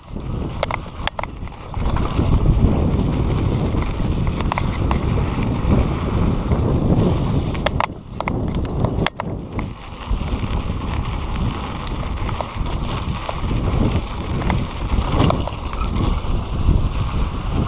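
Mountain bike riding along a rough dirt trail: a steady low rumble of tyres on the ground, with occasional sharp knocks and rattles as the bike hits bumps. The rumble picks up about two seconds in.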